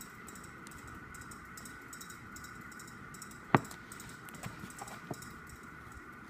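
A photo book being handled: one sharp tap about three and a half seconds in, then a few lighter clicks, over a steady faint hiss.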